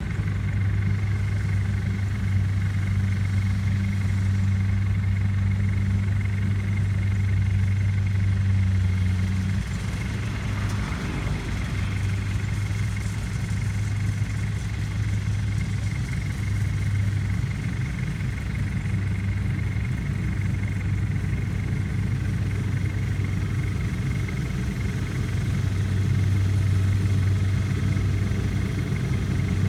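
Kubota DC70 rice combine harvester running steadily while harvesting, a constant diesel engine drone with a faint high whine above it. The drone briefly drops about ten seconds in, then resumes.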